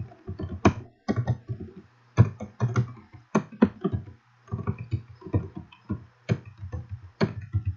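Computer keyboard typing: quick runs of keystrokes with short pauses, each key giving a sharp click with a low thud, as a command is typed, corrected and entered.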